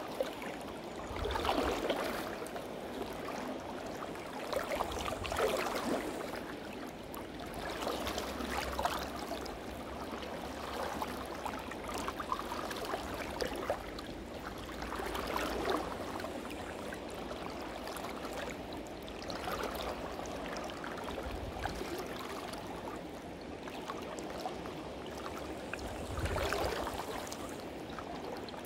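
Clear mountain river running over a stony bed, with a swell of sloshing water every few seconds as someone wades through the current.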